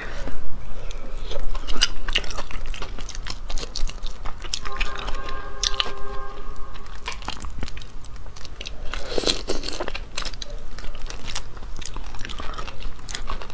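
Close-miked crunching and chewing as crayfish are peeled and eaten, with many sharp clicks of cracking shell. A steady tone lasting about two seconds sits near the middle.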